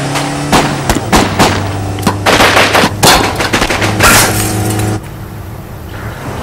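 A rapid volley of gunshots, with glass breaking, over a BMW X5 SUV's engine running; the shooting stops suddenly about five seconds in and the engine carries on alone.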